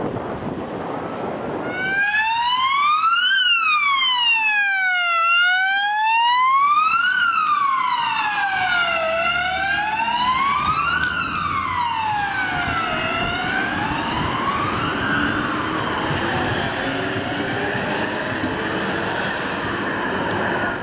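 Wind noise on the microphone, then about two seconds in the electronic siren of a MUG emergency-doctor response car starts, sweeping slowly up and down about every four seconds. It grows fainter in the second half as the car drives off, with engine and road noise underneath.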